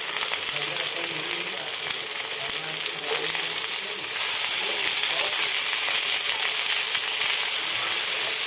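Okra frying in hot oil in a pan: a steady, dense sizzle with fine crackling that grows a little louder about four seconds in.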